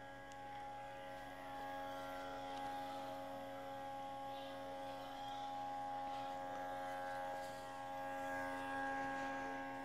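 Telesin C40 portable fog machine running in fog mode, its small fan giving a quiet, steady whirring hum of several even tones while it pushes out fog.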